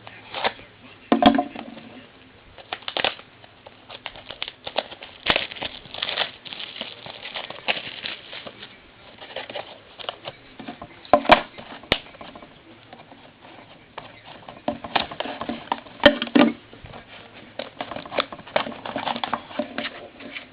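Unwrapping and opening a sealed box of trading cards by hand: plastic wrap crinkling and cardboard rustling and clicking in irregular bursts, with louder tears or snaps about a second in, at about 11 s and at about 16 s.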